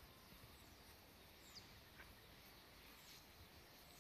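Near silence, with a few faint, short high chirps of birds that slide downward in pitch.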